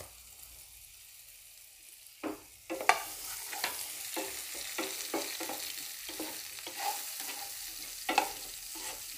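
Diced white radish frying in hot oil in a kadhai. At first there is only a faint sizzle. From about two seconds in, a wooden spatula stirs and scrapes the pieces around the pan in quick, irregular strokes over a steady sizzle.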